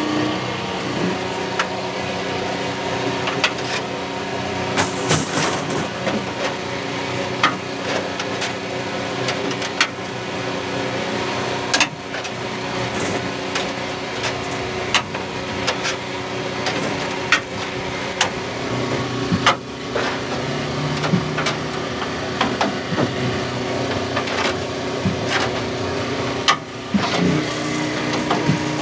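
Demolition derby car engines running steadily, with many sharp knocks and bangs at irregular intervals.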